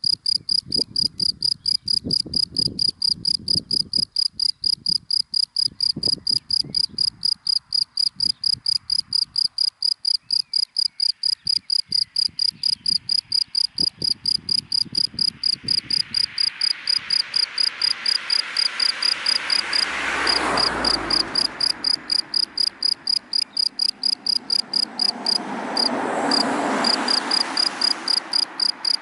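A cricket chirping in fast, even, high-pitched pulses without a break. Two passing cars swell up and fade away, the louder about two-thirds of the way through and another near the end.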